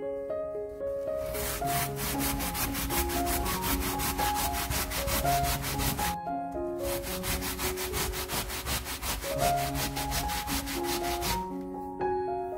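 Raw potato being grated on a plastic hand grater: quick scraping strokes, about five a second, in two runs with a short break near the middle, over background music.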